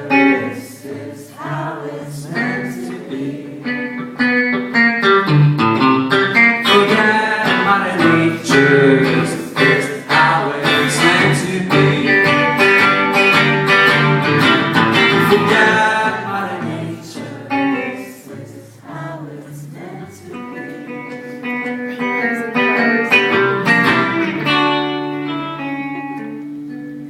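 Live band playing a guitar-led instrumental passage of a pop song. It swells loudest through the middle, drops back, builds briefly again and eases off near the end.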